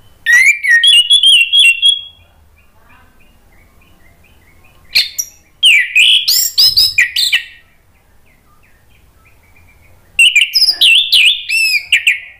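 Orange-headed thrush singing: three loud bouts of rapid, sliding, varied notes, each about two seconds long and roughly five seconds apart, with faint short notes in the pauses between.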